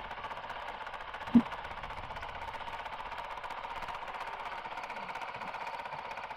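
Honda CRF450RL's single-cylinder four-stroke engine idling with a fast, even beat. A short thump sounds about a second and a half in.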